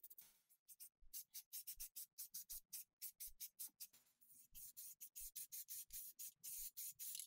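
Aerosol spray-paint can hissing in quick short bursts, about three or four a second, with a few longer hisses as paint is sprayed on in light passes.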